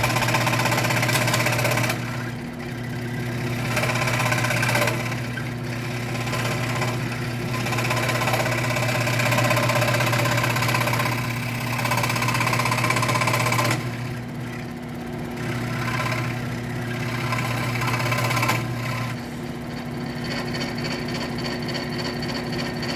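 WEN scroll saw running, its blade stroking up and down through wood with a steady motor hum. The cutting noise swells and eases as the wood is fed into the blade, dropping back briefly a few times and easing off near the end.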